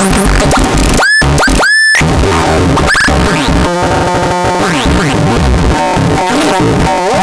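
WUZBRUCHT SP-161 electronic noise synthesizer putting out loud, chaotic glitchy noise full of sweeping pitches. About a second in it cuts twice to brief clean tones before the noise returns.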